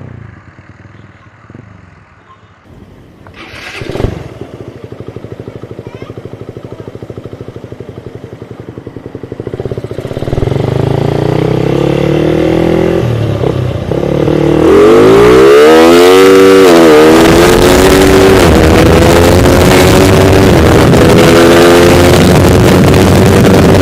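Suzuki motorcycle engine with a reground racing intake camshaft, accelerating hard: the revs climb, drop sharply at a gear change about two-thirds of the way through, then climb again, with wind noise on the microphone. A single sharp knock about four seconds in, before the engine gets loud.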